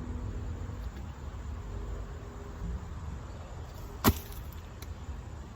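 A crisp bean pod snapped off the vine: one sharp crack about four seconds in, over a low steady rumble.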